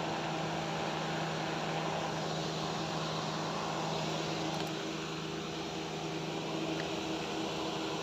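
Steady running hum from a car's engine bay: the engine idling with the A/C condenser fan running, holding one low tone at an even level.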